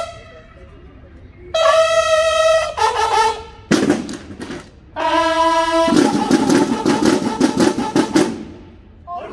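Bugles of a banda de guerra sounding a series of held calls, joined in the second half by drums playing a run of rapid strokes.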